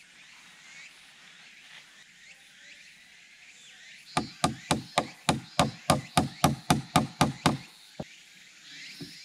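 A fast, even run of about fourteen hard knocks, about four a second, starting about four seconds in, then two single knocks near the end. The strikes are like a hammer or mallet hitting something solid. Faint insect chirping sits underneath.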